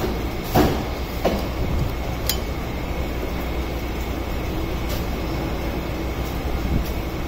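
A few sharp metallic clicks in the first couple of seconds as a socket wrench works the scooter's shock absorber mounting bolt, over a steady low background hum.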